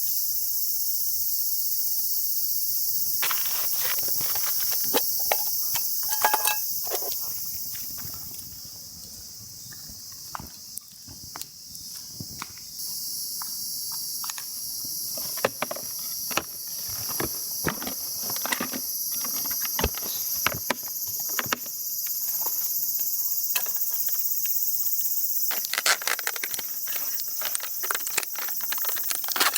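A steady, high-pitched chorus of summer insects, with irregular clicks and knocks of something being handled from about three seconds in, thickest near the end.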